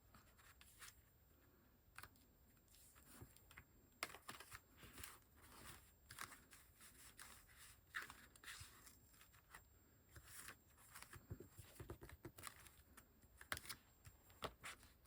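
Faint rustling and scraping of paper and card being handled, with scattered soft taps and clicks.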